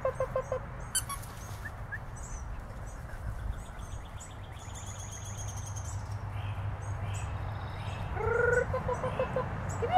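Birds chirping in the background, with a short pulsing animal call at the start and a louder rising, pulsing call about eight and a half seconds in.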